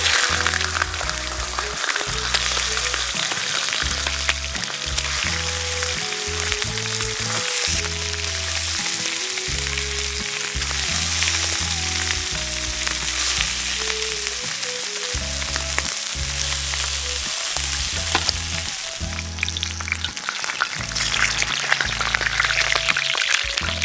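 Mutton tails sizzling and spitting in hot oil as pieces are laid one after another into a plough-disc frying pan with metal tongs. The sizzle starts loudly at once as the first pieces go in and keeps up steadily.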